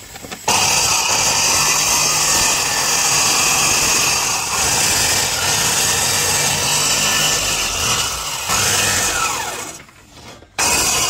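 Handheld power tool cutting wood, trimming excess timber from a wooden fishing boat's hull along a marked line. It starts abruptly about half a second in and runs steadily, drops away about ten seconds in, then starts again just before the end.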